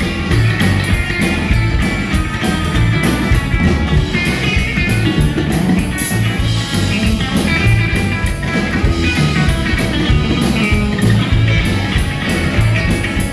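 Rockabilly band playing an instrumental break, guitar to the fore over bass and drums keeping a steady, driving beat.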